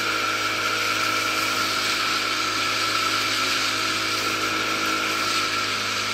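Small boat's outboard motor running steadily at an even speed, with a hiss of rushing air and water over it.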